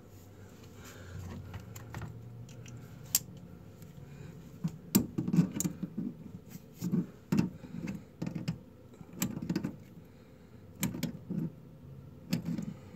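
Tongue-and-groove pliers gripping and turning the coupling nut of a braided stainless toilet supply line on its shut-off valve: irregular metallic clicks and clinks with low handling bumps, starting about five seconds in.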